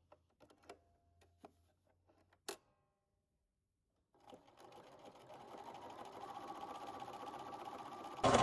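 Sewing machine sewing a zigzag stitch through four-way-stretch fabric. At first there are only a few faint clicks; about halfway through, the machine starts stitching steadily and grows louder, jumping up sharply right at the end.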